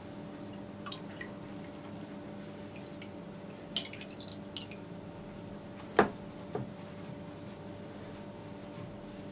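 Egg, oil and water sauce dripping off a rolled yufka pastry back into a glass bowl: a few soft, scattered drips and taps. About six seconds in there is a sharp knock, the loudest sound, as the roll is handled over the plate of breadcrumbs. A faint steady hum runs underneath.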